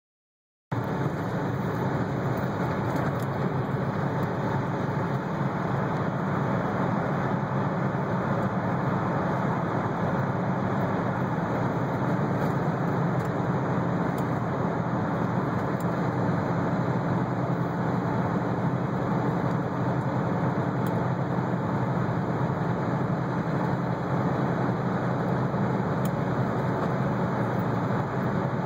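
Steady road noise of a car driving through a highway tunnel: even tyre-and-engine rumble that starts about a second in and holds constant.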